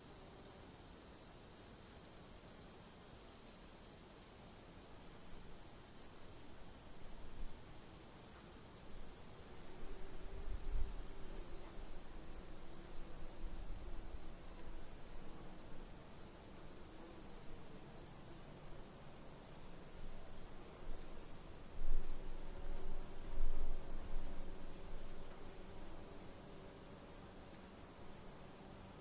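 Crickets chirping in a regular pulse about four times a second, in runs with brief gaps, over a steady high insect trill. A few dull low thumps come in the middle, and the loudest two come about three-quarters of the way through.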